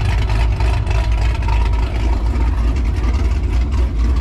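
Car engine idling: a steady low rumble.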